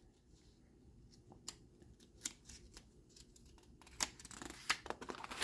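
Paper pages of a manual being handled and turned: a few light, scattered rustles and clicks, coming more often near the end.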